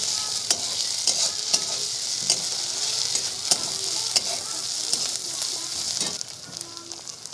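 Sliced onions, chillies and ginger-garlic paste sizzling in hot mustard oil in a kadai, stirred with a steel spatula that clicks and scrapes against the pan several times. The sizzle quietens about six seconds in.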